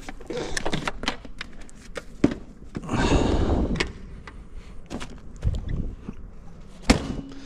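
Handling noise on an action camera: a string of knocks and clicks against the camera and its mount, with a rustle of fabric about three seconds in and a sharp click near the end.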